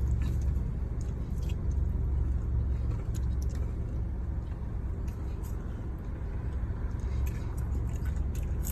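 Steady low rumble of a car heard from inside the cabin, with scattered small clicks of someone chewing and handling food.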